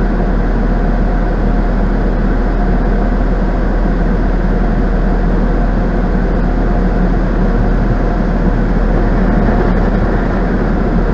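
Automatic tunnel car wash heard from inside the car through a dash cam's microphone: a loud, steady rumble of water spray and spinning wash brushes scrubbing over the car's body and windshield.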